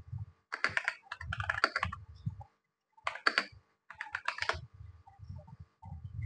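Typing on a computer keyboard in quick bursts of keystrokes with short pauses between them.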